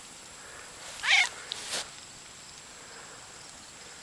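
A cat meowing once, a short loud call about a second in, followed by a brief softer noise.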